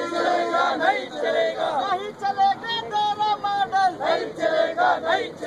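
A group of protesters chanting slogans together, several voices overlapping, with drawn-out syllables.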